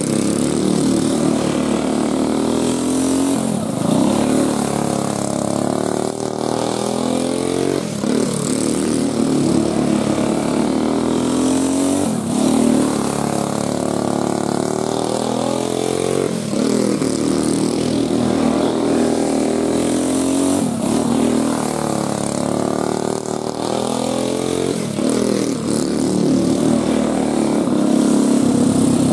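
A 5 hp Briggs & Stratton single-cylinder go-kart engine running hard, lap after lap. Its pitch rises and falls about every four seconds as the kart comes round the oval.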